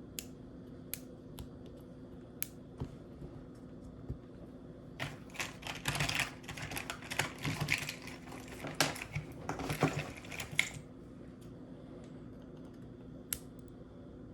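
Small tools and parts clicking and tapping against a MacBook Pro's case during repair work: a few scattered clicks, then a dense run of clicking and rattling in the middle, and one last click near the end.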